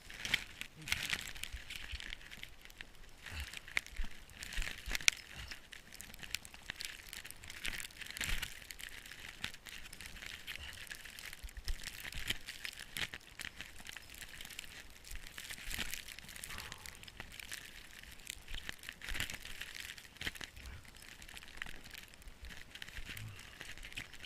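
Snow crunching and crackling in irregular bursts, about one every second or so, over a steady high hiss.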